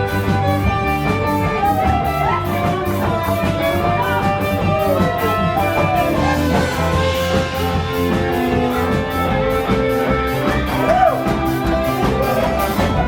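A band's song playing an instrumental passage with a steady beat.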